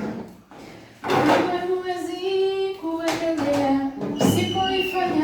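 A Swahili gospel song: a sung voice holding long notes, starting about a second in after a brief lull.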